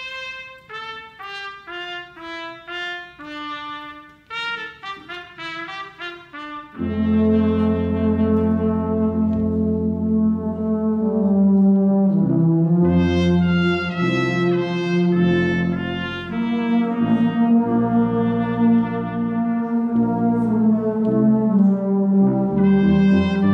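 Church brass band with trumpets, trombones and sousaphone playing: a single melody line of separate notes for about the first seven seconds, then the full band comes in, louder and with deep low brass underneath.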